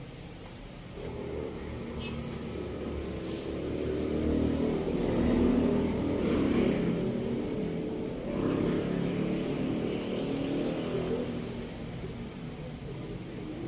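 A motor vehicle's engine rumbling as it passes by, swelling to its loudest midway and then fading.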